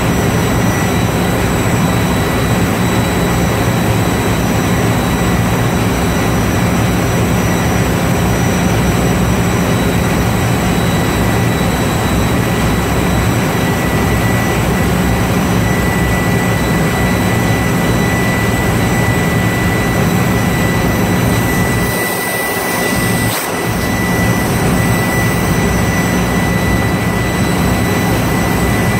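Valve-grinding machine running while a grinding tool refaces the seat of a ship's main-engine exhaust valve: a steady, loud machine noise with a low hum and a constant high whine, the low hum dropping out briefly about three-quarters of the way through.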